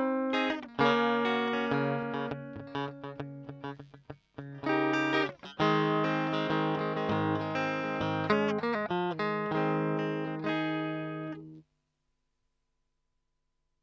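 Electric guitar played through a Kokko compressor pedal: a short tune of chords and picked notes, each ringing out with long, even sustain. It stops abruptly near the end.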